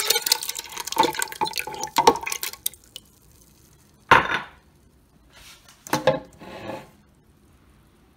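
Soaked lentils and grain, wet with their soaking water, are poured into a plastic blender jar, splashing and clattering for about three seconds. Two shorter splashes follow, a little after the middle.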